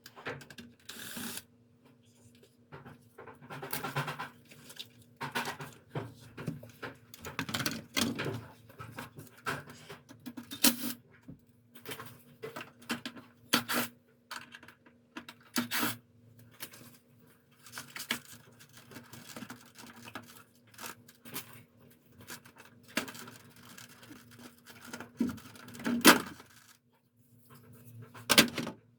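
Irregular clicks, knocks and rustling of plastic parts being handled during disassembly of a Samsung wall-mounted air conditioner, with one louder knock near the end, over a faint steady hum.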